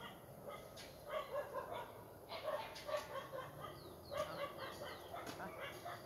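An animal calling in quick, short yelps, several a second, starting about a second in and running in runs with short breaks.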